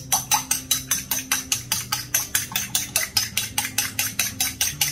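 A metal fork beating a raw egg in a ceramic bowl, clinking against the bowl in a fast, even rhythm of about six or seven strokes a second.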